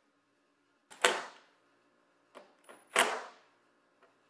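Milwaukee Fuel 1/4-inch impact driver fired in two short bursts, about a second in and again two seconds later, driving in the screws that hold a mud flap. There are a few light clicks between the bursts.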